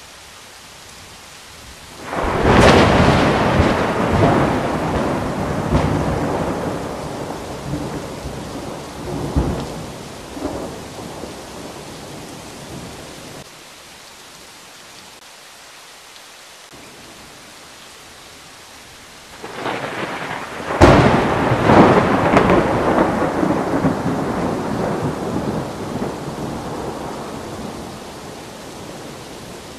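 Two peals of thunder over steady rain. The first comes a couple of seconds in and rumbles away over about ten seconds; the second, about two-thirds of the way through, opens with a sharp crack and rolls off slowly.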